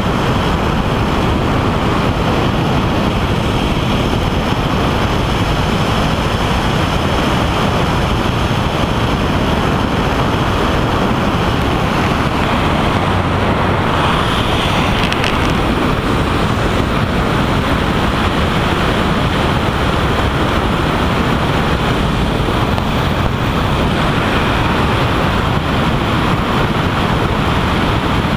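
Helicopter in forward flight heard from a camera mounted on the outside of the fuselage: a loud, steady rush of wind over the microphone mixed with the rotor and engine noise.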